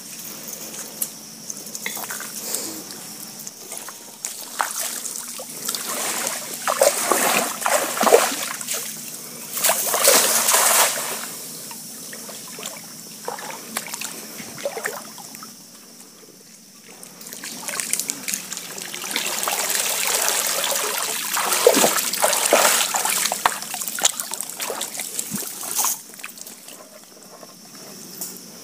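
Water trickling, dripping and sloshing from a wet cast net as it is hauled and handled in shallow water and on mud. There are louder spells of splashing about a third of the way in and again about three-quarters through.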